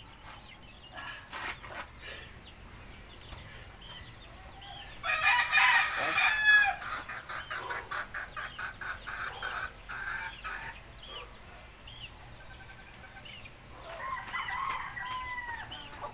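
Rooster crowing, loudest about five seconds in and again near fourteen seconds, with chickens clucking in between.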